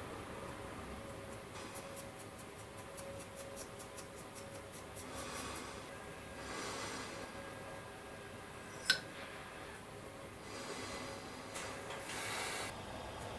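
Stiff paintbrush dry-brushing a plastic model part, giving quick rasping ticks, about six a second for a couple of seconds. Then soft rubbing as the part is handled, with one sharp click about nine seconds in.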